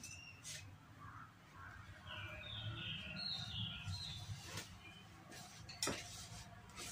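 Faint sounds of bread dough being hand-mixed in a plastic tub as water is spooned in from a small bowl, with a few light clicks of a spoon, the sharpest about six seconds in. Faint high chirps come in around the middle.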